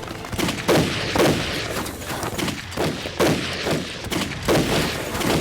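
Gunfire in a firefight: a string of gunshots at irregular intervals, about five of them loud, with quieter shots between.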